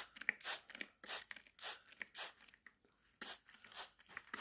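Hand-pumped spray bottle squirting a mist of water, a quick irregular run of short hissing sprays.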